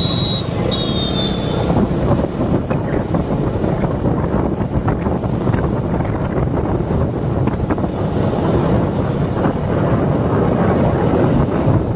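Wind buffeting the microphone on a KTM Duke 200 as it is ridden hard, with the single-cylinder engine running underneath and mostly drowned by the wind. A high, steady whistle-like tone sounds during the first second or two.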